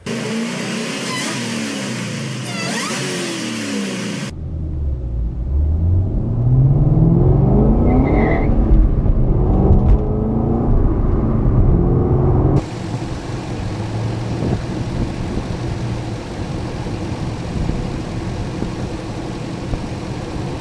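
Car engine revving and accelerating in three cut-together clips. First the engine pitch rises and falls. About four seconds in comes a loud pull with the engine note climbing. After about twelve seconds it settles into a steadier running drone.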